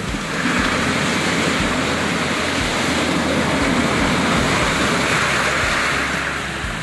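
Surf washing up a pebble beach: one long rush of wave noise that swells about half a second in and eases off near the end.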